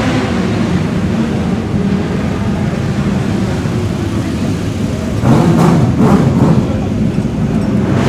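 Engine running steadily: the small petrol engine of a motorcycle roller starter, which revs up louder about five seconds in as it is readied to spin the racer's rear wheel.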